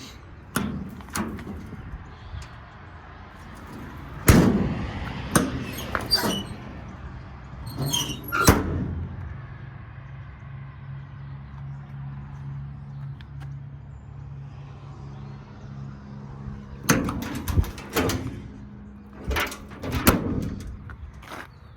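Repeated metal clanks and knocks, like compartment doors and steel parts being handled on a truck's service bed: a cluster of them in the first nine seconds and another near the end. A steady low hum runs underneath.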